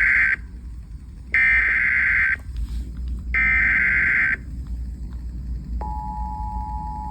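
Emergency Alert System tones over FM radio: the SAME digital header as three buzzy data bursts, the first ending just after the start and then two more of about a second each, two seconds apart. About six seconds in, the steady two-tone EAS attention signal begins, the sign that an emergency alert, here a river flood warning, is about to be read.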